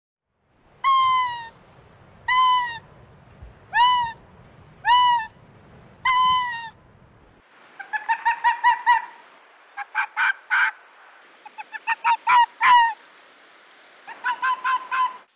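Arctic fox calling: five separate yelps, each falling in pitch at the end, then quick runs of short barking yelps in bursts of four to eight. A low rumble runs under the first half.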